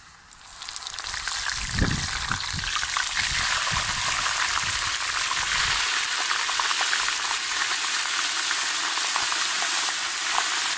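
Deep-frying oil in a cast-iron Dutch oven sizzling as a battered, partly frozen blooming onion is lowered slowly into it at about 190 °C. The sizzle builds over the first two seconds into a steady loud hiss full of crackles.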